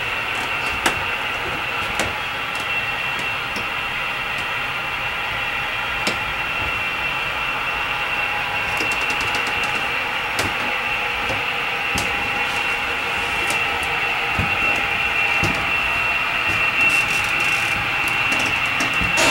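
HO scale model trains running on the layout: a steady high whine over a hum, with scattered light clicks, growing slightly louder near the end.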